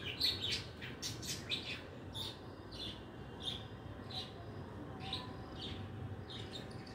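Small birds chirping: a quick run of short, high chirps in the first two seconds, then single chirps about every half second, over a low steady background rumble.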